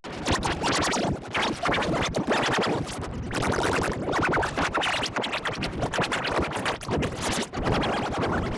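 Heavily distorted, effects-processed audio with no recognisable words: a dense, choppy, stuttering noise with a rapid scratch-like texture.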